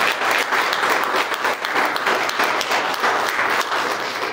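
A congregation applauding: many people clapping in a dense, steady patter that begins to fade near the end.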